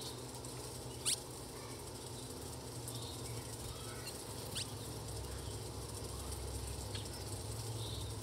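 Small songbirds calling: three short, sharp notes that each sweep quickly down in pitch, about a second in, about four and a half seconds in and more faintly near seven seconds. Faint twittering and a low steady background hum run under them.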